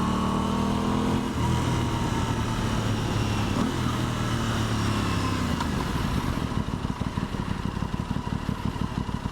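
Aprilia Tuono 660's parallel-twin engine running as the bike slows, its pitch falling with a drop in revs about a second and a half in. From about six seconds in it settles into a fast, pulsing low-rev beat, over steady wind noise.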